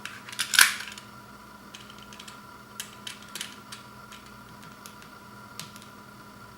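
Hands handling the packaging of a sealed vinyl LP: a brief loud rustle about half a second in, followed by scattered light clicks and taps.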